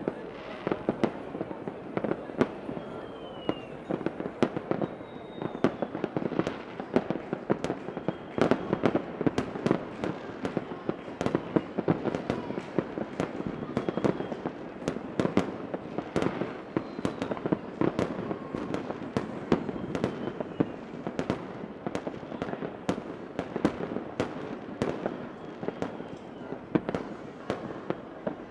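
Fireworks going off continuously: a dense, irregular stream of sharp bangs and crackling pops, several a second, with a few faint short whistles.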